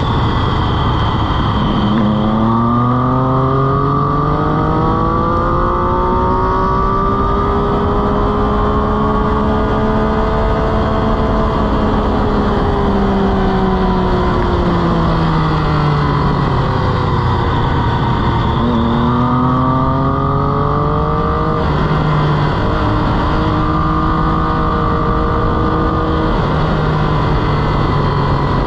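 Sport motorcycle engine heard onboard at speed, revving out with its pitch climbing for several seconds, then dropping back in steps as it slows, then pulling hard again before settling. Heavy wind rush on the bike-mounted microphone runs under the engine throughout.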